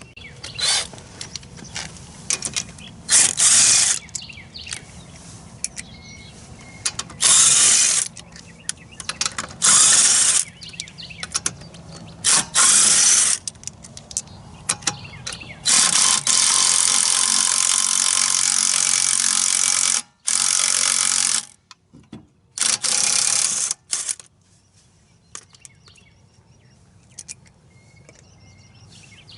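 A handheld power tool run in repeated bursts of about a second, with one longer run of about four seconds a little past the middle, as the lug nuts are taken off a car wheel.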